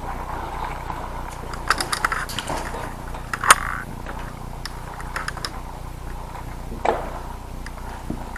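Scattered clicks, rattles and knocks of a player moving with an airsoft shotgun and gear, picked up close by the gun-mounted camera. There is one sharp crack about three and a half seconds in, and a dull knock near the end.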